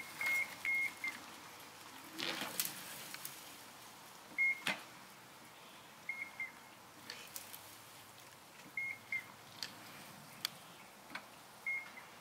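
Short high beeps in small groups of one to three, repeating every few seconds, with scattered light clicks and knocks.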